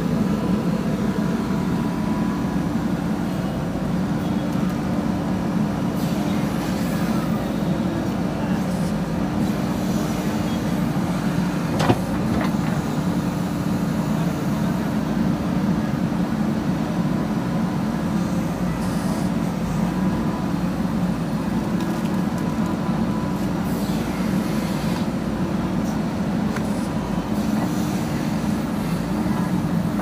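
JCB 3DX backhoe loader's diesel engine running steadily while the backhoe digs mud, with a single sharp knock about twelve seconds in.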